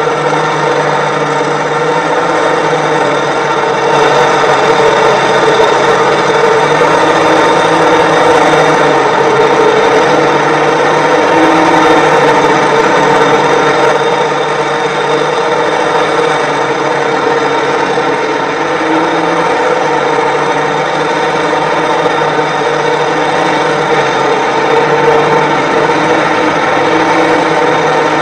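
Diesel engines of a tracked forestry harvester stuck in mud and a tractor beside it, running steadily, a little louder from about four seconds in until about fourteen.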